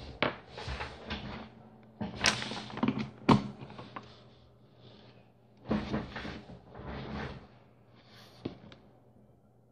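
Rustling and handling noise in irregular bursts close to the microphone, with a few sharp clicks and knocks as things are moved about on a workbench.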